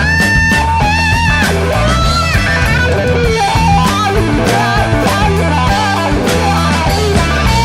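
Blues-rock band playing an instrumental passage: an electric guitar plays a lead line of held, bent notes over bass guitar and drum kit.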